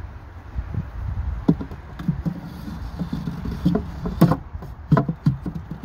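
Wooden frames knocking and clicking against the wooden Layens swarm box as they are slid and set into place, a series of irregular sharp knocks.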